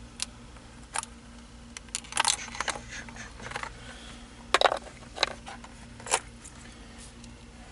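Scattered light clicks and metallic clinks, a dozen or so at irregular intervals, as a car's steering wheel is worked loose and pulled off its steering column, with a faint steady hum underneath.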